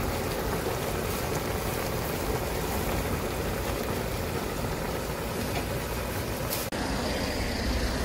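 Pan of jjajang tteokbokki simmering in thick black-bean sauce: a steady bubbling hiss over a low rumble, with a brief break about two-thirds through.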